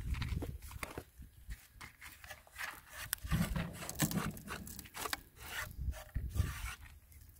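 A hand rubbing and sweeping over a layer of loose sand, making irregular gritty scraping strokes.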